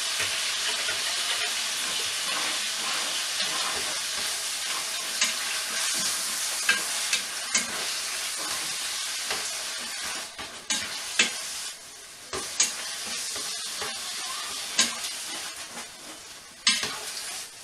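Diced chicken frying and sizzling in a frying pan while it is stirred, the spatula clicking and scraping against the pan every second or two. The sizzle grows quieter in the second half.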